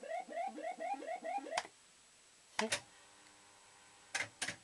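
Maygay Moon Bug fruit machine during a spin: a run of rising electronic bleeps, about four a second, for the first second and a half, then sharp mechanical clunks from the machine, with a faint steady tone in between and three quick clunks near the end as the spinning reels stop.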